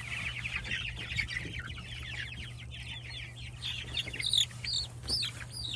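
A flock of month-old Jumbo Cornish Cross broiler chicks peeping: many quick, overlapping, downward-sliding chirps, with a few louder calls toward the end. A steady low hum runs underneath.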